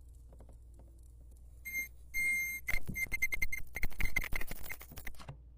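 Rechargeable electric arc lighter running, its arc giving a steady high-pitched buzz with dense crackling. It starts about a second and a half in and cuts off shortly before the end.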